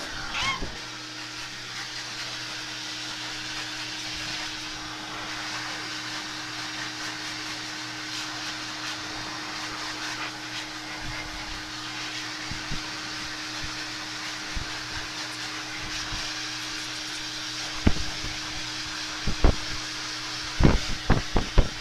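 Hair dryer running steadily, blowing on a wet puppy's coat after its bath. Several short knocks sound near the end.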